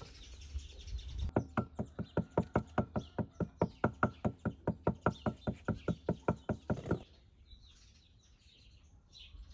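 A fast, even run of sharp knocks, about five a second, that goes on for roughly six seconds and then stops. After it, birds chirp faintly.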